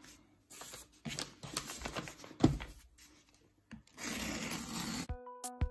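Brown paper parcel being handled and torn open: crinkling and rustling paper, a single knock about two and a half seconds in, then a continuous rip of paper for about a second near the end. Background music starts just before the end.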